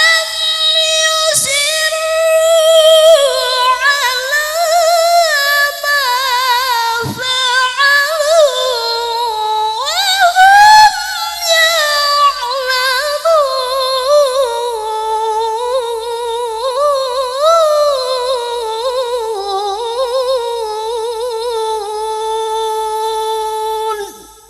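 A single unaccompanied voice reciting the Quran in the melodic tilawah style, drawn out in long phrases with rapid ornamental turns and wavering pitch. The recitation stops abruptly near the end.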